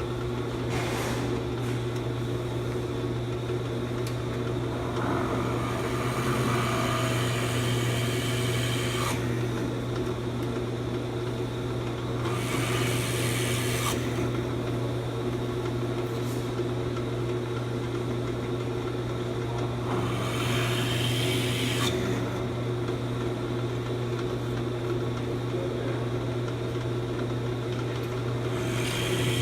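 Rikon 13-inch bench drill press running with a steady hum, its bit drilling into wood several times, each bout adding a few seconds of cutting noise over the motor.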